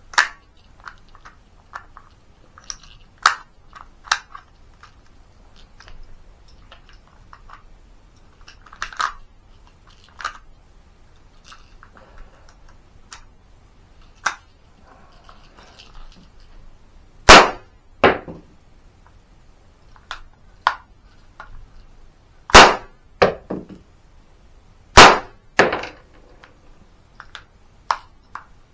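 A!CTION C96 Red9 cap-firing model pistol being handled and shot: light metallic clicks and clacks of loading and working the action, then several sharp, loud cap bangs in the second half, some coming in close pairs.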